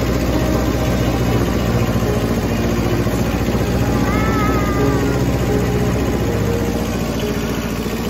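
Front-loader farm tractor's engine running steadily while being driven.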